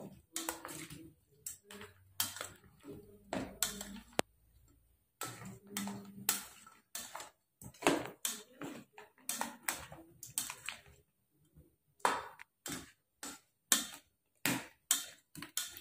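A plastic spoon tossing peeled rambutan fruit in a stainless steel bowl: irregular short knocks and clicks of the spoon against the bowl and the slippery fruit, several a second in clusters with brief pauses.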